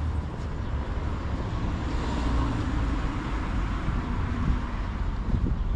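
Street traffic: a steady low rumble, with a vehicle passing that swells and fades about two seconds in.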